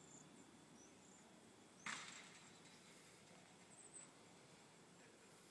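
Near silence, with one brief soft rustle or knock about two seconds in and a faint click near the end.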